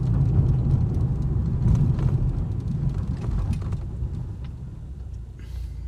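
V6 Chevrolet Camaro's engine and exhaust droning low while driving, heard from inside the car, growing quieter near the end as it eases off. The exhaust note doesn't sound stock; the driver takes it for a quiet aftermarket exhaust.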